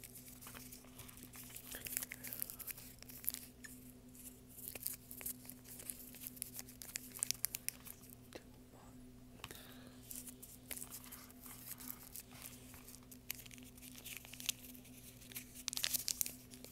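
Close-up crinkling and crackling of handled material, a dense run of small irregular clicks and rustles, over a steady low hum.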